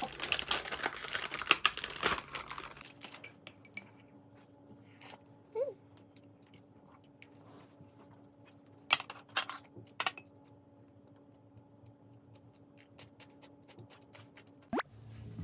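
Light clicks and taps of small objects being handled, dense for the first two seconds or so and then scattered, with a faint steady hum underneath.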